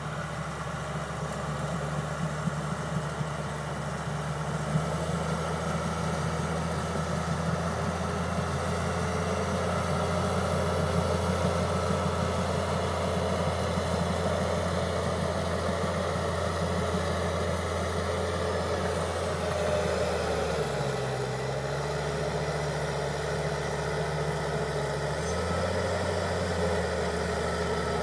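John Deere 700H bulldozer's diesel engine running steadily under work; about twenty seconds in its note drops lower for a few seconds, then comes back up.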